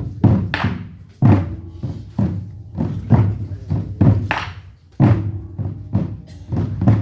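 Large Korean barrel drums (buk) struck by a drum ensemble in an uneven rhythm, about two or three heavy strokes a second, each deep stroke ringing briefly.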